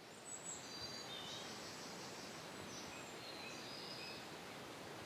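Birds chirping in short, high calls over a faint steady outdoor background hiss.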